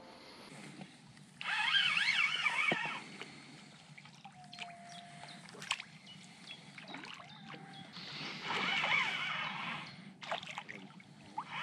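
Songbirds singing at dawn in two warbling bursts, one about a second and a half in and another around eight seconds, with a single short steady whistle between them. Faint water trickles underneath.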